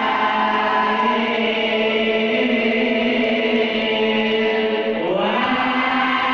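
A group of boys and men chanting marhaban devotional verses in unison through a microphone, holding one long note and then sliding up to a higher note about five seconds in.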